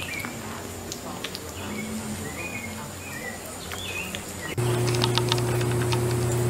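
Baby sloths squeaking: short high chirps, several of them, some gliding a little up or down. About four and a half seconds in, the sound cuts abruptly to a louder steady low hum with a scatter of light clicks.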